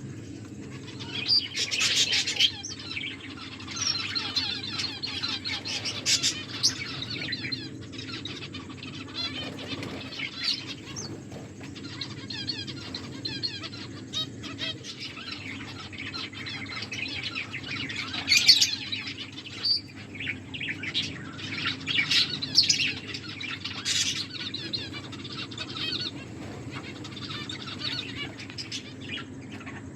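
A group of pet finches chirping busily and without pause, high and twittery, with several louder flurries and quick wing flutters.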